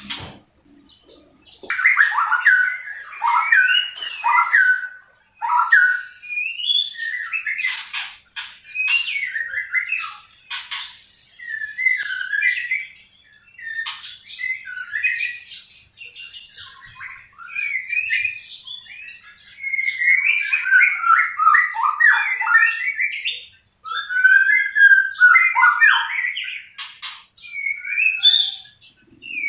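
White-rumped shama singing: a varied run of quick whistled and chattering phrases, delivered in bursts with short pauses between them and a few sharp clicks mixed in.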